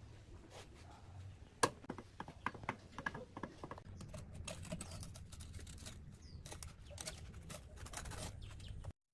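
Irregular light taps and scraping from hand work on wet cement, over a low steady hum. The sound cuts off suddenly near the end.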